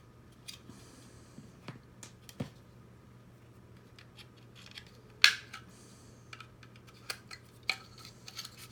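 Small parts of a DJI RoboMaster S1 robot kit being handled and worked loose: scattered light clicks and taps, with one louder click about five seconds in.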